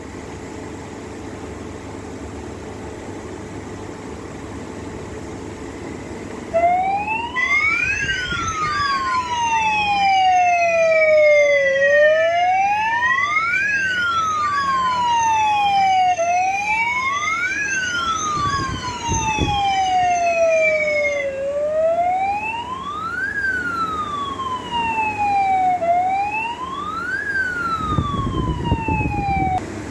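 Electronic fire alarm sounders going off during a fire alarm system test, starting about six seconds in. Several wailing sirens sound out of step, each one rising quickly in pitch and falling slowly, about every four seconds. In the second half only one is left. Before them there is a steady background hum.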